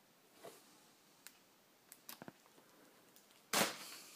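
Cardboard box and packaging being handled: a few faint clicks, then a short, louder scraping rustle about three and a half seconds in.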